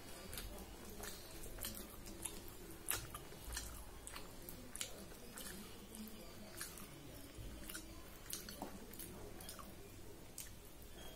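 A person chewing and eating puri and potato fry by hand, with irregular soft wet mouth clicks and smacks, a few each second.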